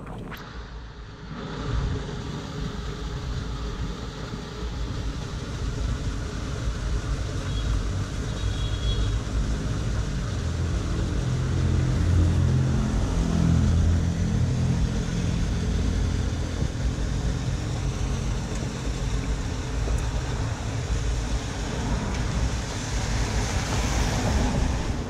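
A motor vehicle running on the wet road, with steady road noise that swells to its loudest around the middle and then eases off.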